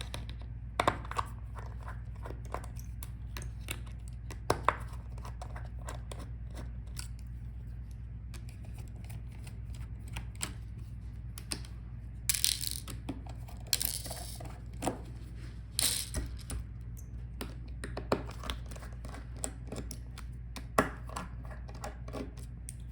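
Scattered small clicks and taps of a screwdriver and screws as the hinge screws are taken out of a Dell Inspiron 5593 laptop's display assembly, with a few short scraping rustles as the parts are handled. A low steady hum runs underneath.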